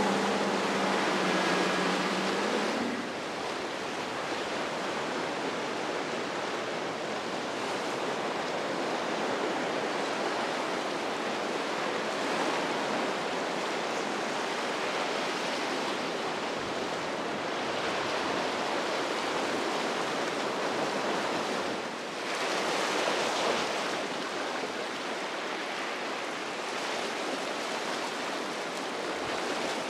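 Surf and waves washing steadily in rough water. A boat engine's low hum fades out in the first few seconds, and a wave breaks louder a little after the middle.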